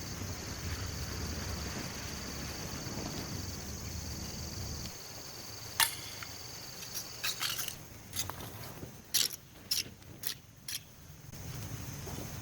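Steady high-pitched drone of forest insects that fades out past the middle, followed by a scatter of sharp clicks or snaps, about eight of them, in the second half.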